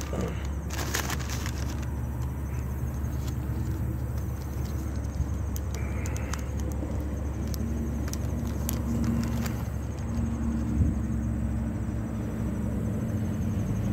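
Steady low engine hum, like a motor vehicle idling, with a few brief crinkles and clicks.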